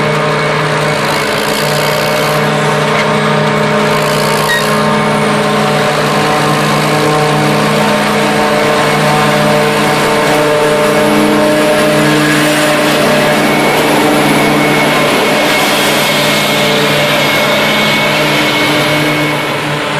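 New Holland FR9060 self-propelled forage harvester running steadily under load as it picks up and chops windrowed rye, its engine and chopping gear giving a constant, even hum of steady tones.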